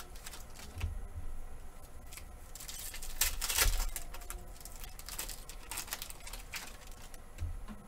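Foil wrapper of a trading-card pack crinkling as it is opened and handled, with a few light knocks; the loudest crinkling comes a little past three seconds in.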